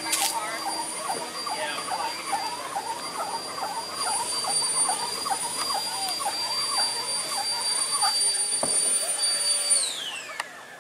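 A small motor whining steadily at a high pitch, then spinning down with a falling pitch near the end, over background voices.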